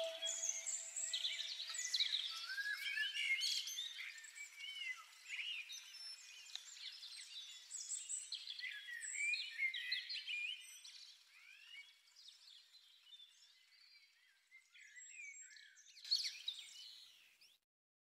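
A chorus of small birds chirping and singing, many overlapping calls, thinning out and fading until it stops shortly before the end. The last held note of music dies away in the first second.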